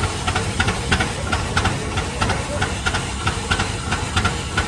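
Rumely OilPull S 30-60's kerosene-burning two-cylinder engine running while it drives a sawmill by belt, its exhaust firing in a quick, uneven string of sharp beats over a low rumble.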